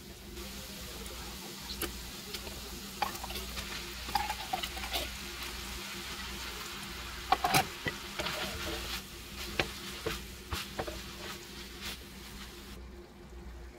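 Ground meat and mushrooms sizzling in a nonstick frying pan, with spoons clicking and scraping against the pan as a thick creamy sauce is spooned in and stirred through. The hiss drops away near the end.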